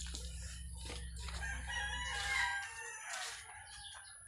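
A rooster crowing in one long, drawn-out call from about one to three seconds in.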